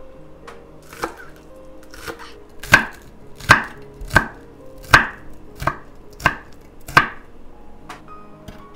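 Chef's knife chopping green onions on a wooden board: about ten sharp, separate strikes at a slow, even pace, the loudest in the middle stretch.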